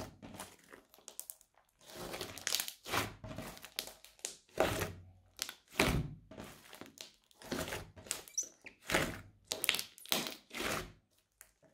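Thick crunchy slime being squeezed, folded and pressed by hand, giving a run of irregular crackling squishes as trapped air pockets pop, about one or two a second with short pauses between.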